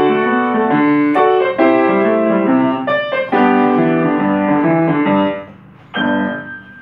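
Upright piano playing a boogie blues. The playing stops about five seconds in, and a single final chord is struck a moment later and left to ring and fade.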